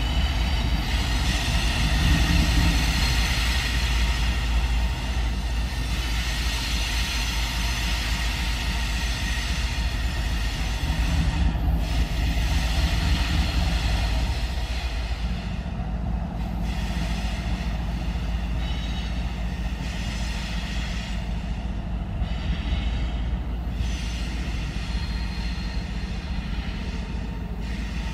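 CSX diesel freight locomotives moving slowly past: a steady engine rumble with a low hum that steps up slightly in pitch about halfway through.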